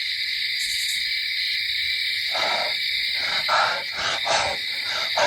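Steady high-pitched chorus of night insects. From about two seconds in, a run of short rustling crunches, a few a second, like footsteps through leaf litter.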